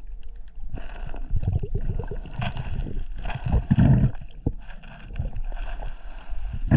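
Stream water sloshing and gurgling close to the microphone, in uneven surges with low rumbling thumps.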